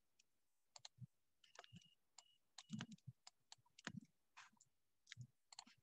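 Faint, scattered clicks and taps from a computer pointing device working a digital whiteboard.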